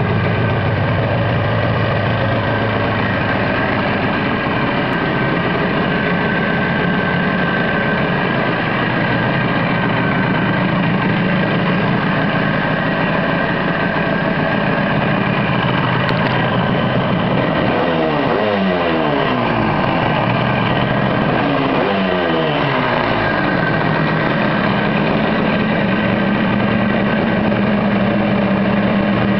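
Yamaha RD200's air-cooled two-stroke parallel twin idling steadily. Twice, past the middle, it is revved briefly and the revs fall back to idle.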